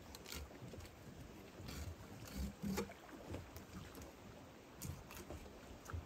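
Faint, scattered knife scrapes and light knocks on a wooden cleaning table as walleye is filleted.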